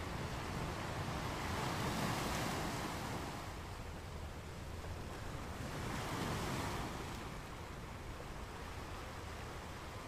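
Ocean surf: a steady wash of waves with two larger waves swelling in and fading, about two seconds in and again about six seconds in.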